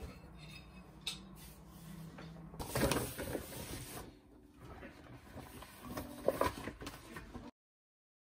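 A fork clinking and scraping on an empty ceramic plate, then dishes, a glass and cutlery clattering and clinking against each other and the stainless steel sink as they are washed by hand.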